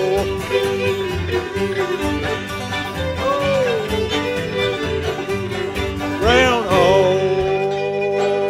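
Bluegrass string band of fiddles, banjos, guitar and upright bass playing a tune. About six seconds in it slides up into a long held final chord that closes the tune.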